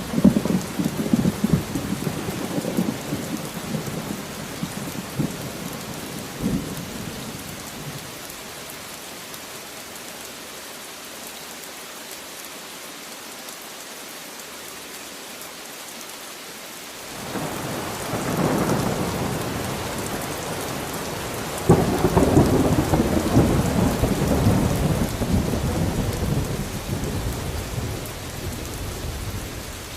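Steady rain with rolling thunder. A rumble of thunder dies away in the first several seconds, the rain goes on alone for about ten seconds, then thunder builds again, with a sharper clap about two-thirds of the way through that rolls on and fades near the end.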